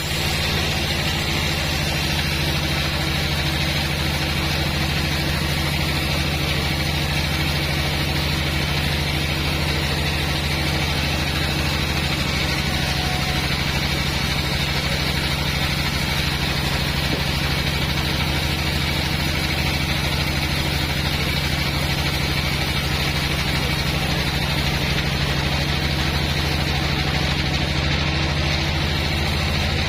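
Sawmill band saw machine running steadily, a constant low mechanical drone that does not change.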